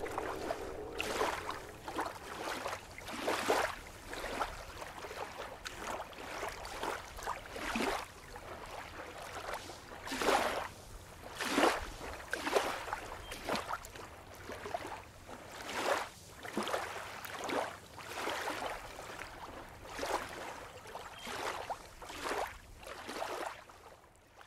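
Water lapping and splashing in short, irregular washes, roughly one a second, over a faint low rumble, fading out at the end.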